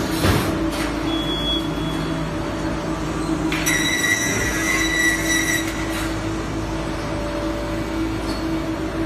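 Magnesium oxide board production line machinery running with a steady hum. About three and a half seconds in, a high squeal joins for roughly two seconds and then stops.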